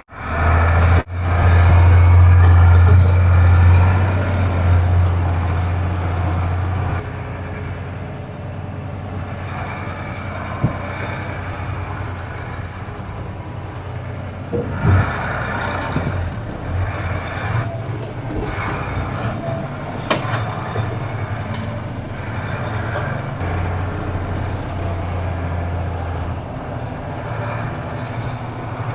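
Mercedes-Benz Unimog U2450 6x6 truck's diesel engine running as it drives, loudest over the first several seconds and then a steadier, slightly quieter drone, with a few short knocks along the way.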